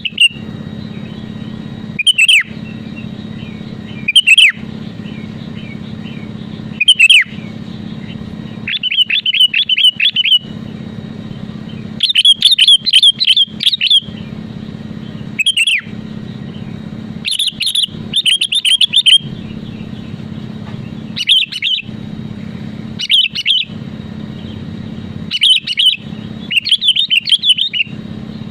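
Sooty-headed bulbul (kutilang) calling repeatedly in bright, short phrases every second or two, some running into quick bubbling strings of notes, over a steady low hum.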